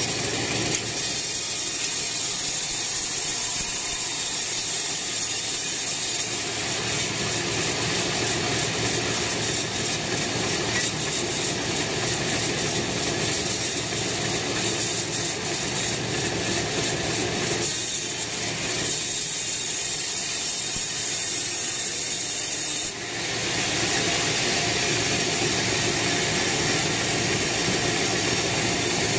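Band sawmill ripping lengthwise through a teak log, a steady, loud rasping run of the blade through the wood over the machine's motor. About 23 seconds in the sound drops briefly and then comes back as a steadier, brighter hiss as the blade clears the end of the log and runs on without load.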